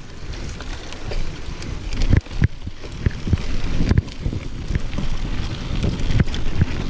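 Mountain bike riding fast along a dirt singletrack: the tyres rumble over the ground and wind rushes over the microphone. Sharp knocks come now and then as the bike hits bumps, the strongest about two seconds in and again about four seconds in.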